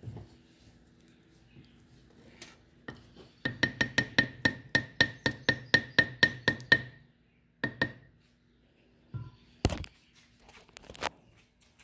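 Spatula knocking against a ceramic crock pot insert while stirring stiff play dough: a quick run of sharp, ringing knocks, about five a second, for around three seconds, then a few single knocks, the loudest one near the end.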